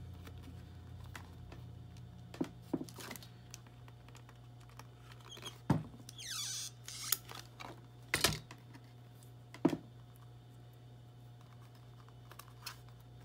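Scattered clicks and knocks of a Crop-A-Dile hole punch and eyelet setter being handled and squeezed to punch and set an eyelet in a book's cardboard cover, with a short rustle of paper about six seconds in.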